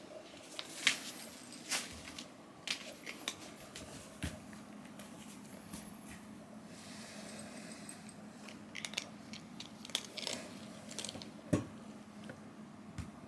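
Ragdoll cat chewing its breakfast: irregular crunches and clicks, some sharp and close together, others a second or more apart.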